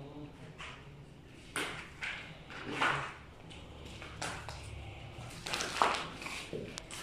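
A few irregular sharp taps and knocks, the loudest about three seconds in and another cluster near the end, over a low background.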